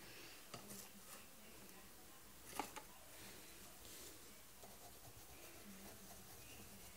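Faint scratching of a colored pencil shading on drawing paper, with a few light clicks of pencils being picked up and set down, the sharpest about two and a half seconds in.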